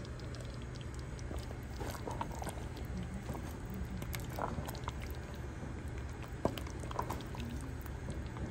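Thick tomato-based chicken stew simmering in a pot, with scattered small wet pops and clicks from the bubbling sauce over a steady low hum.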